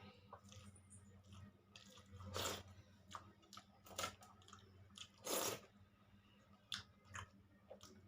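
Close-miked eating sounds: a person chewing, with a few louder bites or mouth smacks every second or so over a low steady hum.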